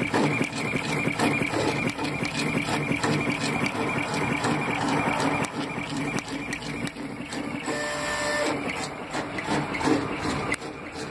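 Homemade CNC braille embosser punching braille dots into poster paper with its spring-loaded 'pogo stick' punch: a fast run of repeated taps over a steady machine hum. A short steady tone sounds about eight seconds in.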